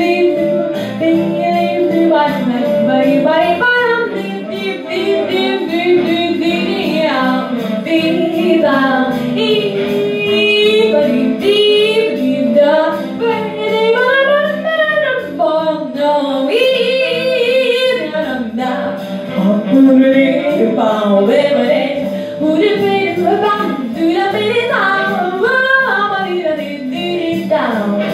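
A young girl singing into a handheld microphone, her voice wavering with vibrato on held notes.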